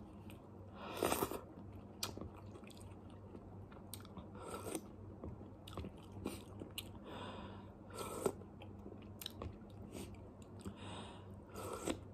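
A man chewing and eating instant noodles and bread: scattered soft mouth clicks and short smacks, a few louder ones about a second in and again near the end.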